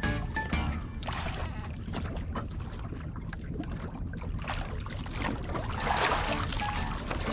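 Wind and water noise aboard a small fishing boat at sea, with scattered knocks and a louder rush of noise about six seconds in.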